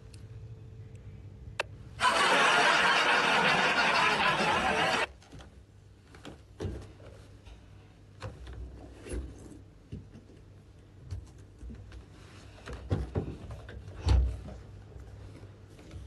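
A loud rushing noise that starts and stops abruptly and lasts about three seconds, then scattered knocks and bumps as the phone is set down and a gaming chair is moved, with a louder thump near the end.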